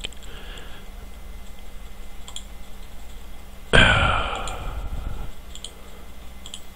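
A few sharp computer-mouse clicks, spaced a second or more apart, as buttons in a file-conflict dialog are pressed. About four seconds in there is one louder sudden sound that fades away over a second or so.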